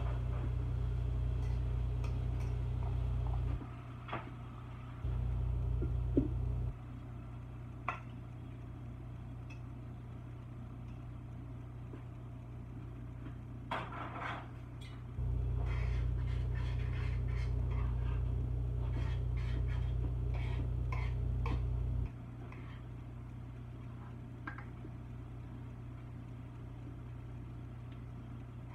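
Cooking sounds at the stove: scattered clinks and knocks of utensils against cookware. Under them runs a steady low hum that cuts out and comes back several times.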